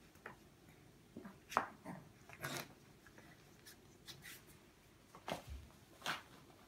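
Two cats play-fighting on a tile floor: scattered short scratchy scuffs of paws and claws, with a few louder ones about one and a half, two and a half, five and six seconds in.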